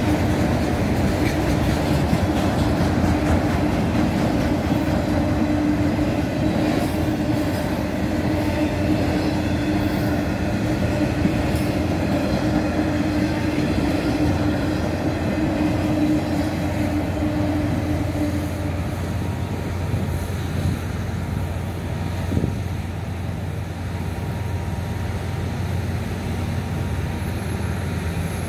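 Freight train autorack cars rolling past over the rails in a steady rumble with a clickety-clack of wheels on rail joints. A steady tone rides over the rolling noise until about two-thirds of the way through, then stops, and the rumble eases as the last cars go by.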